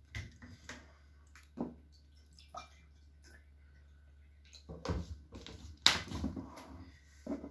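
Scattered clicks, taps and plastic crinkles of a plastic water bottle and tableware being handled on a table, with a louder burst of handling noise and a sharp click about six seconds in.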